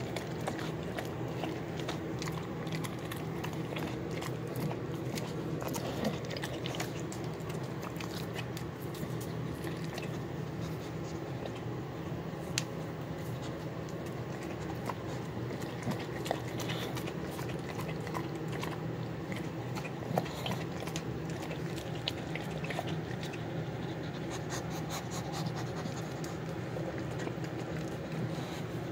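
Dogs eating wet food of chicken, rice, beans and vegetables in beef broth off a tile floor: chewing and licking with many small sharp clicks and taps throughout, over a steady low hum.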